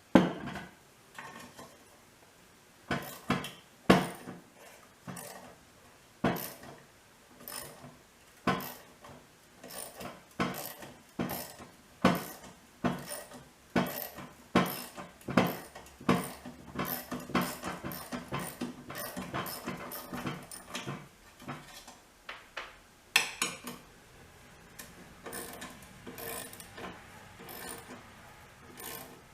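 A ratchet wrench clicking in short strokes as rusted self-tapping screws are worked loose from a lawn mower muffler's spark arrestor. There are spaced single clicks at first, then a quicker run of clicking in the middle.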